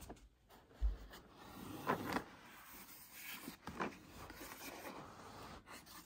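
Hard plastic tool carrying case handled and shifted on a fabric-covered surface: plastic rubbing and scraping against the cloth, with a dull thump about a second in as it is set down.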